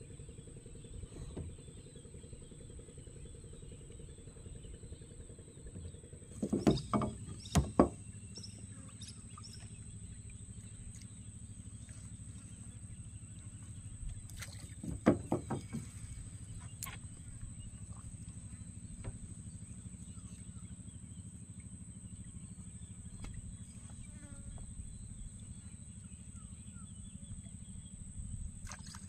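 Gill net being hauled by hand into a wooden fishing boat. Sharp knocks and thuds against the boat come in two clusters, about seven and fifteen seconds in, over a steady low hum.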